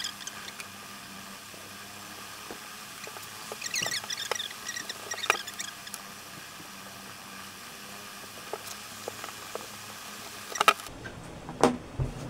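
Small crinkling, tapping and rustling sounds of hands handling a roll of hemming tape and fabric on a table, over a steady background hum. A sharp click comes near the end, after which the hum cuts off suddenly, followed by a couple of knocks.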